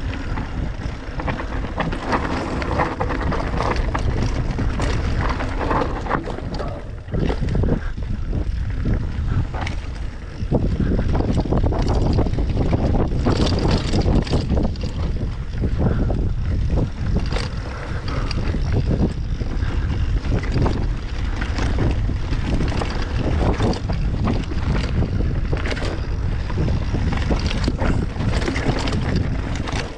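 Wind buffeting the microphone on a moving bicycle, with frequent short knocks and rattles from the bike over rough ground.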